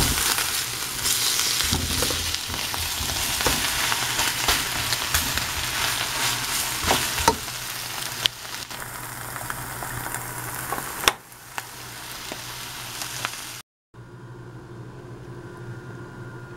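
Sliced luffa (Chinese okra) and egg sizzling as they are stir-fried in a pan, with a spatula scraping and clacking against the pan. The frying quietens in the second half and cuts off suddenly near the end, leaving a low steady background hum.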